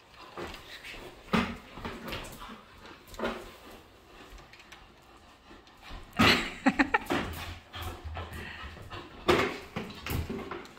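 A yellow Labrador retriever tugging and jumping at a plastic bucket held by a man: short dog vocal sounds mixed with knocks and scuffs of the bucket and paws on a wooden floor, coming in bursts, the loudest cluster a little past the middle and another near the end.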